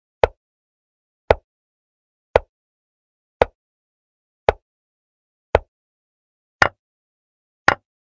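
Chess-app move sound effect: a short, sharp click like a wooden piece set down, repeating about once a second, eight in all, each marking a move in the replayed game. The last two clicks are brighter in tone.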